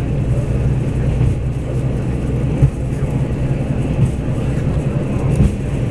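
Running noise inside the cabin of a Taiwan Railways DR2800 diesel multiple unit: a steady low drone from the underfloor diesel engine and the wheels on the track, with a few short knocks.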